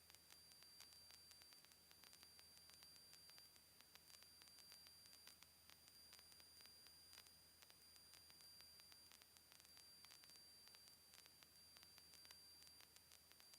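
Near silence: a faint steady hiss from the audio feed, with a thin, steady high-pitched tone and scattered faint ticks.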